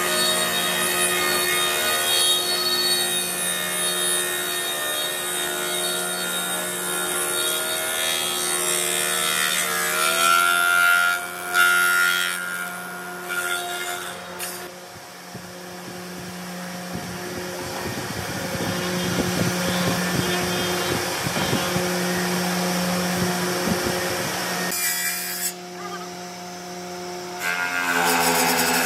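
Woodworking spindle moulder running, its spinning cutter head machining a wooden board as it is pushed past: a steady motor hum under continuous cutting noise that shifts in pitch partway through.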